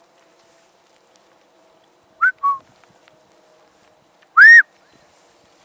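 A shepherd whistling commands to a working sheepdog. About two seconds in comes a short two-note whistle: a quick rising note, then a lower held one. Near the end comes one loud whistle that rises and falls.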